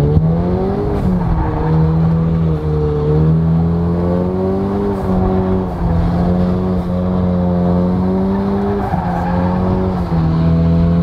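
Car engine revved up and held at high revs, its note climbing at the start, then staying high with small jumps up and down, with tyres squealing underneath as the wheels spin.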